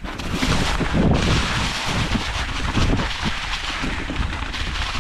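Electric mountain bike descending a leaf-covered rock slab: wind rushing over the microphone, with tyre and bike noise thudding irregularly underneath.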